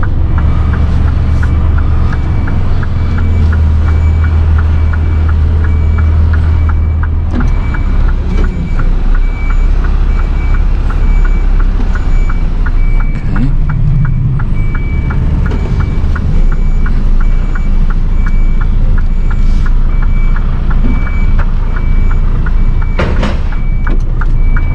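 Mercedes Actros tractor unit's diesel engine running at low revs while reversing, heard from inside the cab, with its reversing alarm giving an even series of beeps nearly the whole way through and a faster regular ticking alongside. The engine note is stronger for a few seconds near the start.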